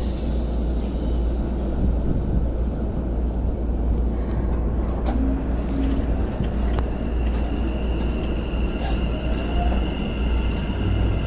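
Keikyu N1000 series electric train standing at the platform, a steady low rumble broken by a few sharp clicks. In the last few seconds thin steady tones come in and a faint rising whine begins as its VVVF inverter starts the train moving.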